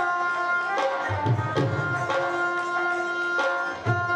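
Instrumental background music with held melodic notes and low hand-drum strokes in a tabla-like style.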